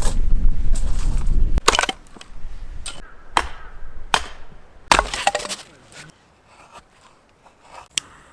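Dry firewood cracking and snapping: several sharp cracks over the first five seconds, with a low rumble in the first second and a half, then fainter crackles.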